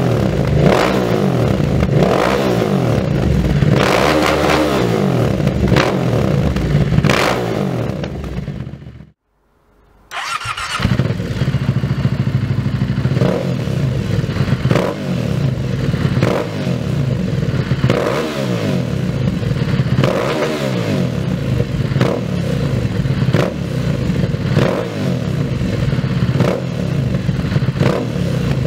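Aprilia ETV 1200 Caponord's 1200 cc V-twin through a Dominator HP1 silencer, revved again and again at standstill. For the first nine seconds or so it runs with the catalyst removed (decat); after a second of silence it runs with the catalyst fitted, blipped about every two to three seconds.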